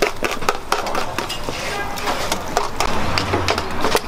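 Kitchen clatter at a food prep counter: rapid clicks and knocks of utensils and food being handled, with voices in the background. A low steady hum sets in near the end.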